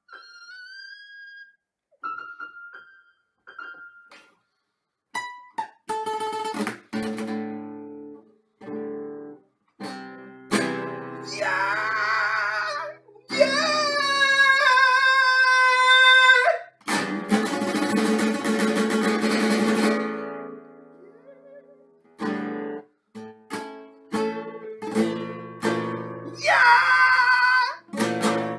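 Classical guitar played with plucked and strummed chords, including a fast burst of strumming partway through, while a man sings long held notes with vibrato over it. A few sparse keyboard notes sound at the start.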